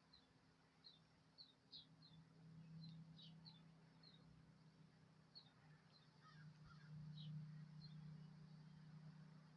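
Faint small-bird chirps: short high chips repeated irregularly, about one or two a second, over a low steady hum that swells twice.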